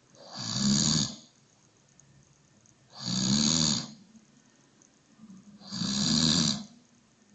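A person snoring: three snores, each about a second long, at an even pace roughly every three seconds.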